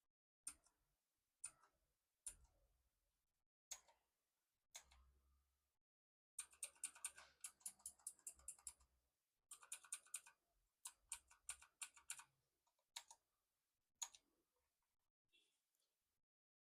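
Faint clicking of a Jedel KL68 mini mechanical keyboard's blue switches as keys are pressed: several single presses, then two quick flurries of keystrokes in the middle, then two more single presses.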